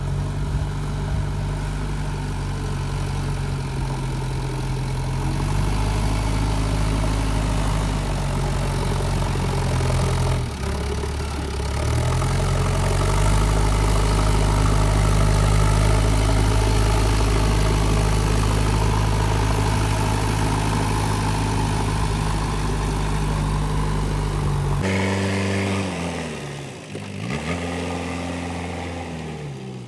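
JCB 3DX backhoe loader's diesel engine running steadily under load, its pitch stepping up about five seconds in and dipping briefly around ten seconds in before recovering. Near the end the sound changes abruptly to an engine revving up and down several times.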